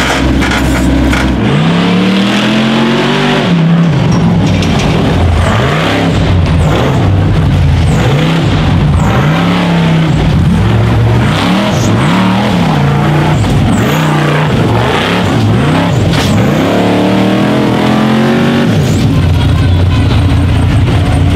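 Rock bouncer buggy's engine revving hard under load as it climbs a steep dirt hill. The pitch surges up and drops back again and again, about once a second, with throttle stabs, and holds higher for a longer pull near the end.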